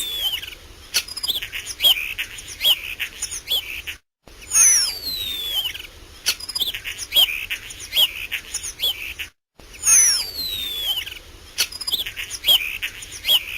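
Common starling song: a long downward-sliding whistle followed by dry clicks and short chirps, the same phrase repeating about every five seconds.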